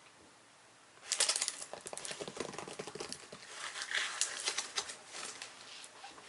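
Hands tapping, scratching and rubbing a cardboard shipping box wrapped in plastic packing tape: a busy run of crinkly clicks and taps that starts about a second in.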